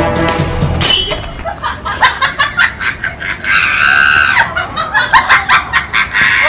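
Loud laughter in rapid, choppy bursts, with a shrill scream-like squeal held for about a second in the middle.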